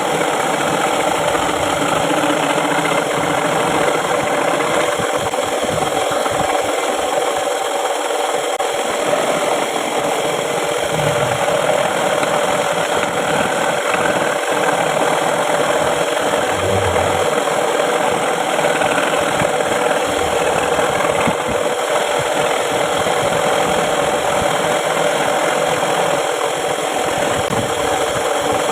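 Home-built scroll saw running steadily, its blade cutting a wooden board with a continuous mechanical rattle.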